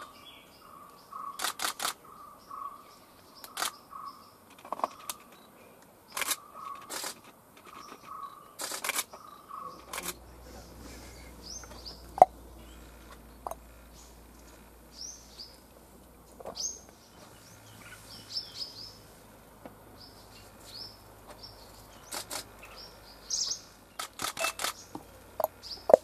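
Camera shutters firing in quick runs of several clicks every few seconds, with small birds chirping in short high notes throughout and more busily in the second half.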